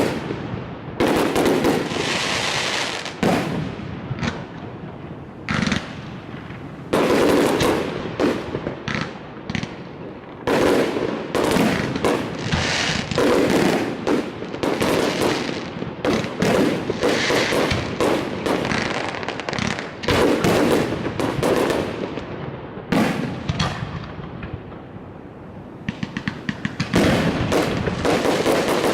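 Aerial fireworks exploding in quick succession: sharp bangs, each trailing off into a rumble. Near the end comes a fast run of crackling reports.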